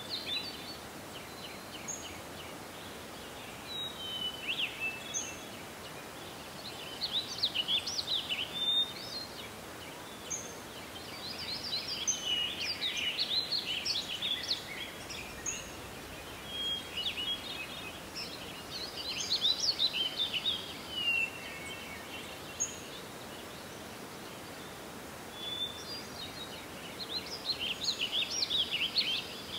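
Small songbirds singing: bursts of fast chirping, warbling song every few seconds, with single short whistled notes in between, over a faint steady outdoor hiss.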